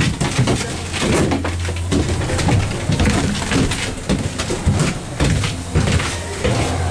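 Doppelmayr D-Line gondola cabin running through the station, heard from inside the cabin: a steady low hum with irregular rattles and clacks.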